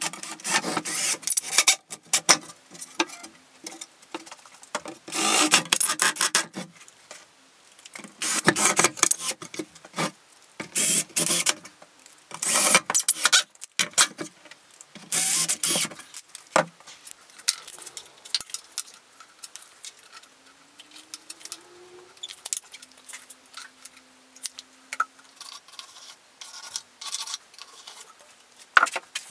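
Hand work on a plywood panel: a run of loud scraping and rubbing strokes, each about a second long, for roughly the first half. Then quieter handling clicks with a short rising, then steady, low motor whine.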